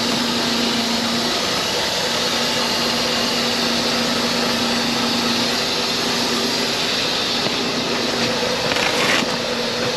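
Steady mechanical drone of a large delivery truck running close by: a constant hum under a broad hiss.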